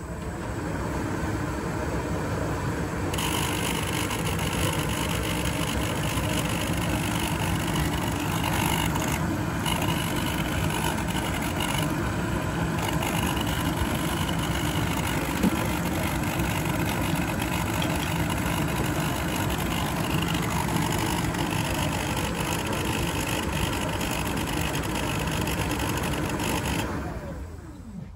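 Indesit heat pump tumble dryer's condensate water pump running outside the machine: it spins up, runs steadily with a harsh rattling buzz, and winds down near the end. This is the noisy pump blamed for the dryer's noise.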